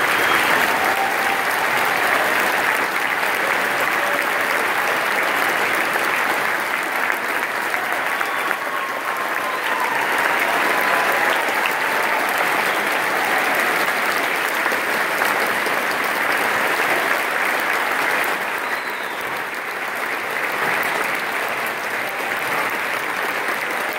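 Large theatre audience applauding steadily in a standing ovation.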